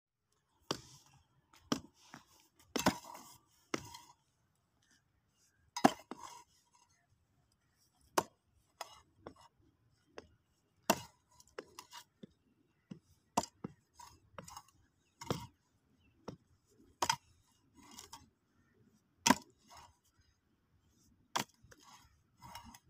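A metal-bladed hoe striking and scraping into hard, dry, cracked soil again and again, about one chop a second at an uneven pace, with short gritty scrapes after some of the strikes as loosened earth is dragged aside.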